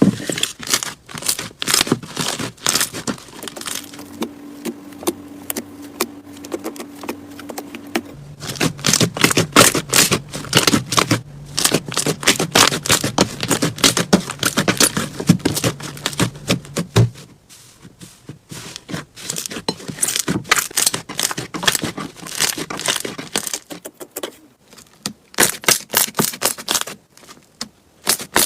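Slime being squeezed and worked by hand, giving dense runs of crackling clicks and pops, with a couple of brief lulls.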